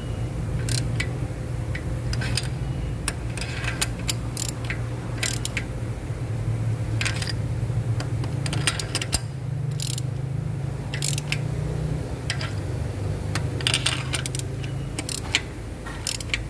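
Irregular metallic clicks and clinks of hand tools as a spark plug is fitted and tightened in a deep spark-plug well on the engine, over a steady low hum.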